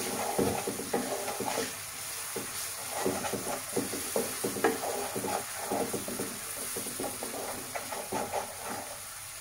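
A cooking utensil scraping and knocking against a pan in quick, irregular strokes, stirring ground spices through chicken frying in oil, over a low sizzle.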